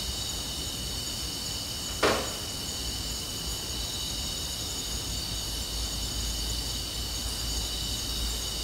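Boosted night recording of steady cricket chirring over hiss and a low rumble. About two seconds in, a single short, sharp sound drops quickly in pitch, the loudest moment, presented as the sound to listen for.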